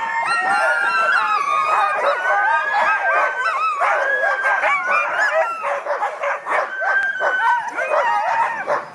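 Several harnessed sled dogs yelping and howling together in a continuous, overlapping chorus of rising and falling cries: the excited clamour of a team eager to run before the start.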